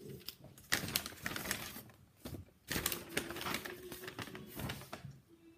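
A white shopping bag being handled and rummaged through: irregular crinkling and rustling with sharp crackles, coming in spurts with short pauses.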